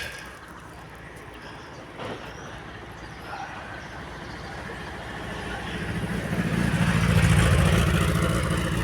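A low engine rumble that grows louder about halfway through and eases off slightly near the end, like a motor vehicle running close by.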